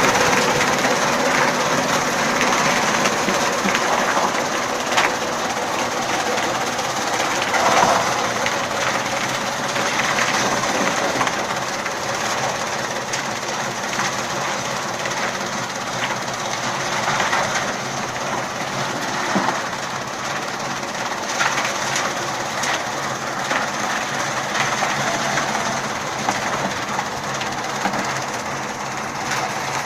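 Arcnut chaff cutter running steadily: a constant machine hum with scattered short clicks and knocks.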